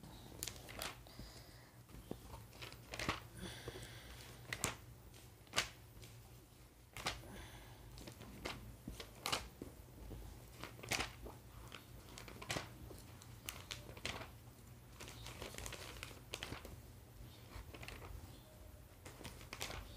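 Glossy catalogue pages being turned and handled by hand: quiet rustling and crinkling of paper with scattered short taps and flaps, over a faint steady low hum.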